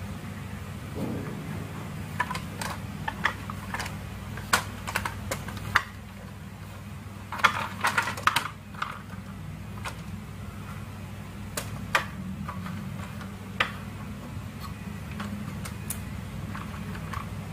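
Yellow plastic toy semi dump truck being handled on a wooden floor: irregular sharp plastic clicks and light knocks from the truck's body and wheels, bunched together about halfway through, over a steady low hum.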